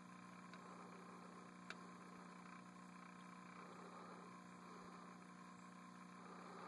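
Near silence with a faint steady hum, and one faint click about two seconds in.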